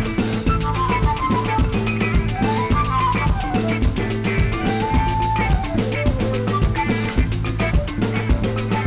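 Background music with a steady drum-kit beat, a held bass and a melodic lead line.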